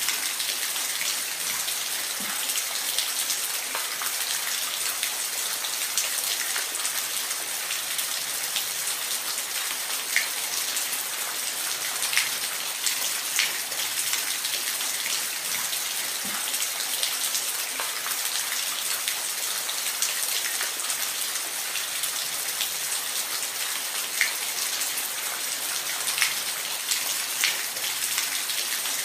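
Steady rain, an even hiss with scattered sharper drips of drops landing on a surface.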